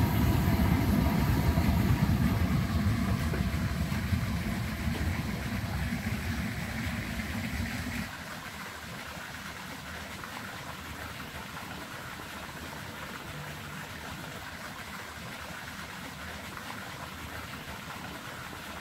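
Gas burner flame on high heat under a copper rose-water still, a low rumble that fades over the first several seconds. After a sudden cut, water from a fountain splashing into a pool, a steady, quieter hiss.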